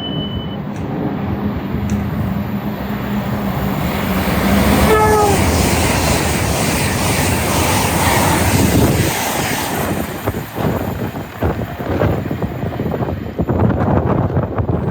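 A train passing at speed through a station, sounding a short horn toot about five seconds in. The toot is followed by a loud rush of wheels and air that turns into uneven, gusty noise as it goes by.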